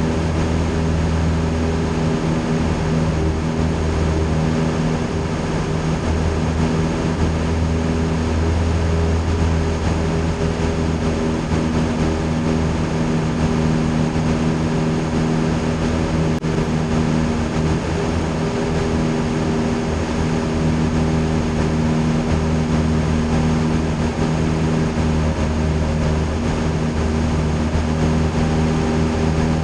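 Single-engine piston airplane's engine and propeller running steadily at cruise power, heard inside the cockpit as an even drone with a low hum and a hiss of airflow.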